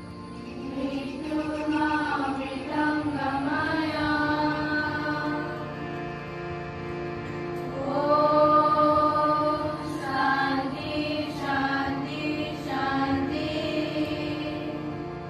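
A group of students singing a school prayer together in unison, slow chant-like phrases with long held notes over a steady drone.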